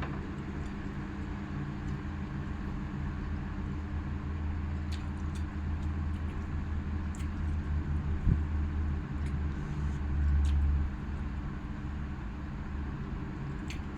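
A steady low mechanical hum that swells louder for about a second around ten seconds in, with a few faint clicks.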